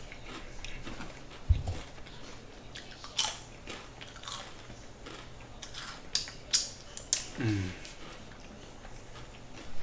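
A man chewing and biting a large sandwich, with scattered wet mouth clicks and crunches. About seven and a half seconds in there is a short low sound sliding down in pitch.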